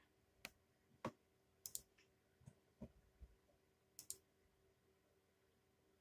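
Near silence broken by scattered soft clicks and taps, about six in all, irregularly spaced, including two sharp high double clicks.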